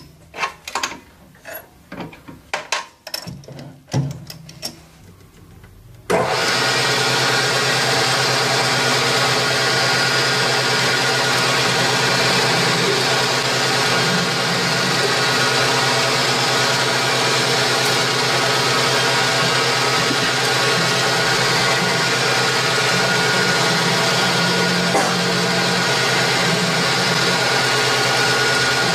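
Industrial machine sounds: irregular clicks and knocks for about six seconds, then a loud, steady machine running sound with a constant hum starts abruptly and holds unchanged.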